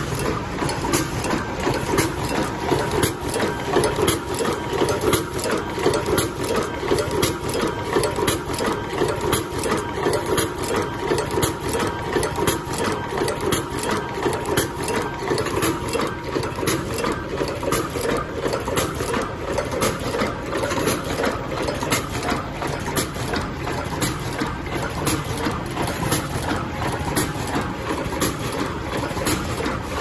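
Yuanhan YH-S01 automatic wire cutting, stripping and double-end crimping machine running: a steady, rapid mechanical clatter of clicks and knocks from its feed, cutter and crimping presses.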